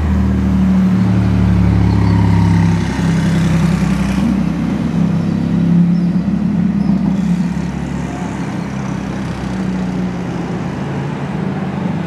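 Tuned 850 hp Porsche 991 GT2 RS's twin-turbo flat-six exhaust with a low, steady engine note at low revs as the car drives slowly past and away, easing off somewhat after about eight seconds.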